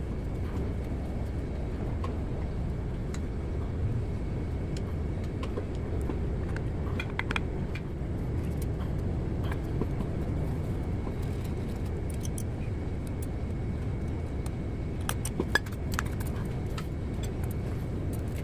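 Scattered light metallic clinks and taps from the CAT 3406C piston, piston pin and connecting rod being handled on a workbench, loudest about three quarters of the way through, over a steady low background rumble.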